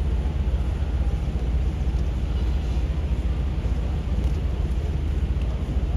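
City street ambience, mostly a steady low rumble with a faint wash of street noise over it and no distinct events.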